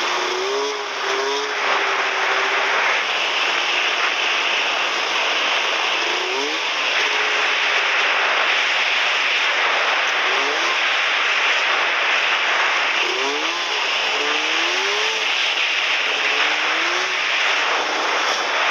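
Snowmobile engine running under way, with a constant noisy rush of track and wind; its pitch rises and falls in short revs several times, most often in the second half.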